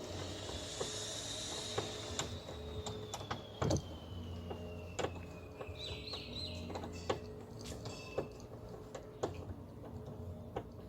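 Irregular clicks and knocks of a screwdriver and loose parts being handled at a car door panel, over a steady low hum. A faint high tone slowly falls in pitch through the first half.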